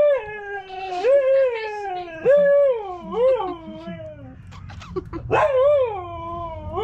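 A dog vocalising in long drawn-out calls, each starting high and sliding down in pitch: four in quick succession, then another after a short pause, as if telling a story.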